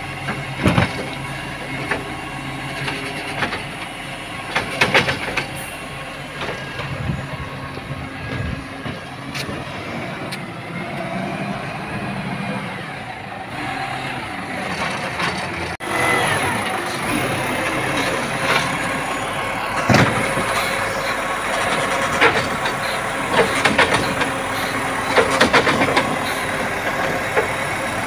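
Iveco side-loader garbage truck running, its engine note rising and falling as the hydraulic arm grabs, lifts and empties wheelie bins, with several sharp clunks of the bins knocking against the arm and hopper.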